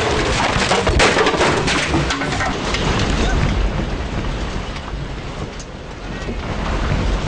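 Objects rattling and clattering over a low rumble as an earthquake shakes the surroundings. The clatter is densest in the first few seconds, eases about five to six seconds in, and the rumble builds again near the end.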